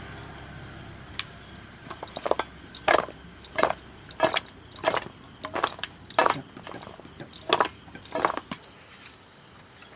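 Utensils clinking and knocking against dishes, about a dozen irregular sharp clinks over several seconds.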